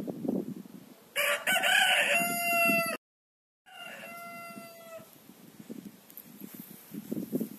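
Rooster crowing loudly about a second in, cut off abruptly after about two seconds by a brief dead gap; a second, fainter crow follows. Soft low-pitched noises sit under the start and near the end.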